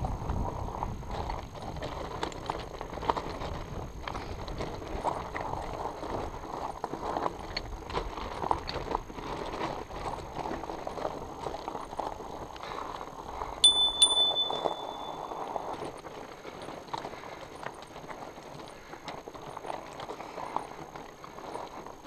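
Fat bike tyres rolling over loose rocks and gravel, with a steady crunching clatter and irregular knocks and rattles from the bike. A little past the middle a sharp metallic ping rings briefly, the loudest sound.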